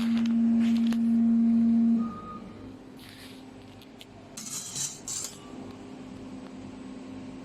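Fiber laser cutting machine at work. A loud steady hum stops about two seconds in, then come several short hissing bursts over a fainter steady hum.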